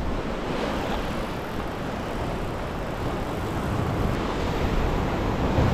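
Ocean surf washing and foaming over shoreline rocks, a steady rushing that grows a little louder near the end, with wind buffeting the microphone.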